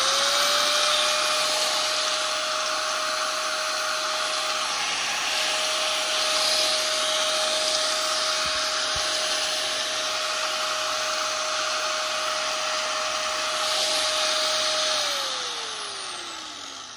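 Hitachi G10SH4 angle grinder running with no disc fitted: a steady high whine over rushing motor noise. About fifteen seconds in it is switched off and winds down, the whine falling in pitch as it fades.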